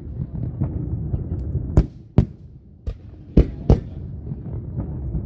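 Fireworks going off: about half a dozen sharp bangs at irregular intervals, the loudest about two seconds in and around three and a half seconds, over a continuous low rumble and crackle.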